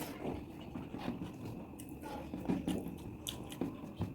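A person eating chicken curry with rice: chewing a mouthful, with irregular sharp clicks and small wet mouth sounds.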